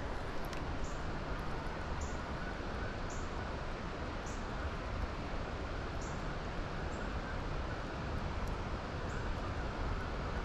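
Steady outdoor river ambience: an even rushing hiss, with short high chirps every second or two.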